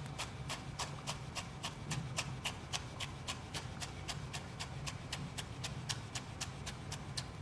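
Kitchen knife rapidly chopping fresh ginger fine on a wooden cutting board, an even run of sharp taps about five a second.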